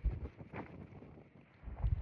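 Wind buffeting the microphone in two low rumbling gusts, one at the start and a louder one near the end.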